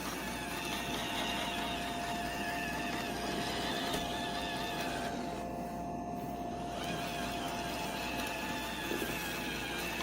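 iRobot Roomba i7 robot vacuum running: a steady whir from its suction fan and brushes with a thin steady whine, the higher part of the sound briefly dropping away around the middle.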